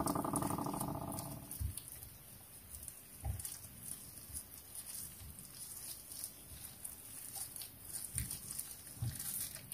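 Faint soft thumps and small clicks of hands rolling slices of raw beef around a bacon and onion filling, with a few louder soft thumps scattered through.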